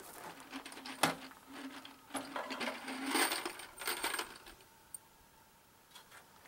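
Small metal objects clinking amid rustling handling noises, with a sharp knock about a second in and a brief ringing clink a little after the middle.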